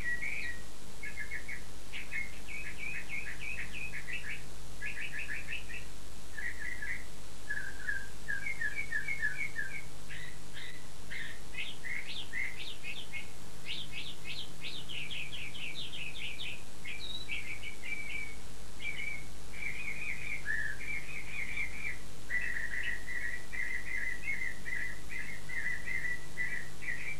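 Bird song: quick trilled phrases of short, high chirped notes, repeated with hardly a pause, over a faint steady hum.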